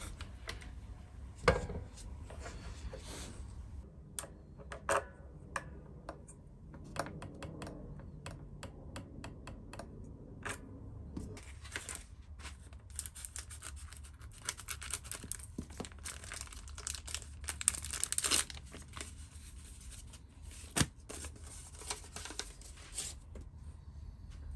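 Scattered clicks and knocks of hands at work on an electric guitar on the bench. Then, for several seconds past the middle, a run of crinkling and tearing as paper single-string envelopes and a plastic bag are opened.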